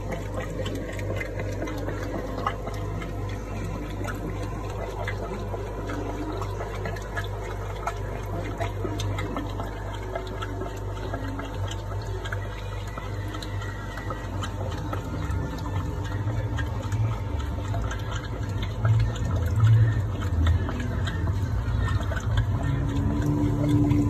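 Stream of water pouring into a shallow goldfish tank, a steady splashing and bubbling with many small crackles over a low hum. The low rumble grows louder and uneven in the second half.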